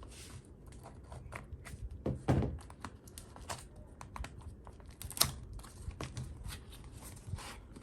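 A small box and its packaging being opened and handled by hand: a run of small clicks, taps and crinkling rustles, with louder knocks about two seconds in and again about five seconds in.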